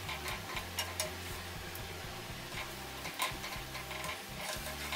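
Potato bondas deep-frying in hot oil, a steady crackling sizzle, while a wire-mesh skimmer is moved through the oil, with a few sharp clicks.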